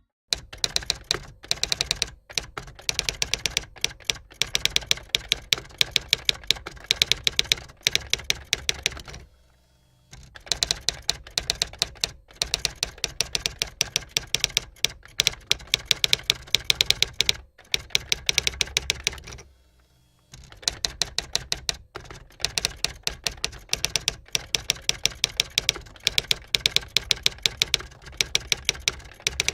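Rapid typewriter-style key clicks in long runs, with louder strikes among them, pausing briefly about a third and two-thirds of the way through.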